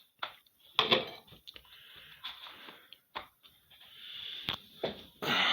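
Plastic front grille and housing of a box fan being handled and slid: scattered clicks, taps and short scraping sounds.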